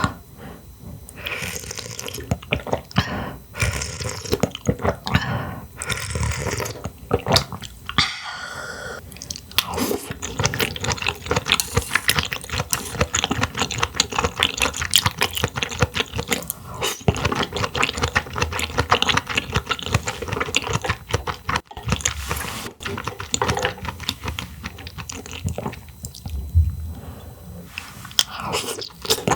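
Close-miked wet chewing and mouth sounds of a person eating clams: a dense run of irregular wet clicks and crackles.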